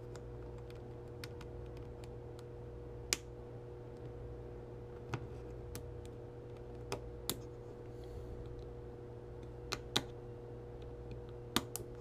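Sparse, irregular little clicks and taps of a small hand tool working a spring pin into the plastic quick-release mount on the back of a Garmin Forerunner 310XT watch, over a steady low hum.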